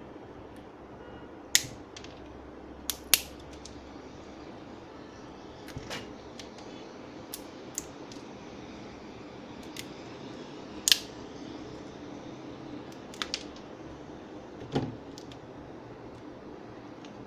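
Sharp clicks and taps of hard objects, about a dozen at irregular intervals with the loudest about a second and a half, three seconds and eleven seconds in, over a steady low hum.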